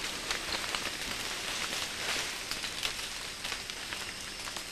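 Leaves rustling and twigs crackling and snapping as an orangutan breaks off a branch and handles it, with scattered small clicks.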